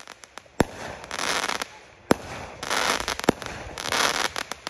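Aerial fireworks shells bursting: three sharp bangs about a second and a half apart, each followed about half a second later by a crackling sizzle from the gold glittering stars, and another bang right at the end.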